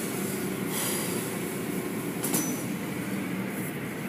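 Automatic tunnel car wash running: its hanging cloth strips sweep over a foamy car amid a steady mechanical hum and rush. There is a brief sharp click a little over two seconds in.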